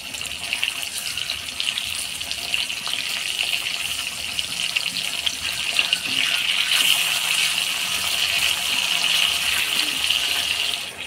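Pieces of hilsa fish frying in hot oil in a kadai: a steady sizzle with fine crackling, louder for a few seconds past the middle.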